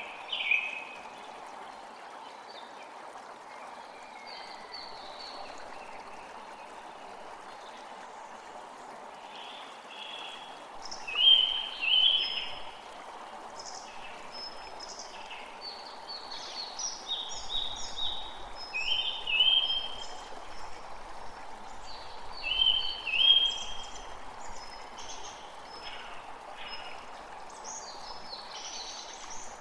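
A stream runs steadily, with birds chirping over it in short repeated calls; the calls are loudest about a third of the way in and again past the middle.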